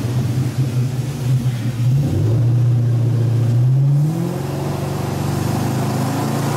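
Boat engine running under way, its pitch rising about four seconds in as the throttle is opened, then running steady.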